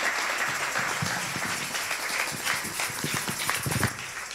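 Audience applauding, a dense patter of individual hand claps, cutting off suddenly near the end.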